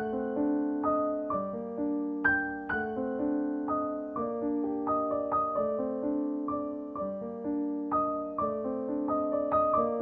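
Background piano music: single notes struck a few times a second and left to ring over lower chords.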